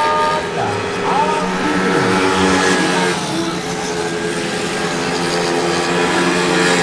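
Several small-capacity race motorcycle engines running together, with short rising revs near the start and about a second in.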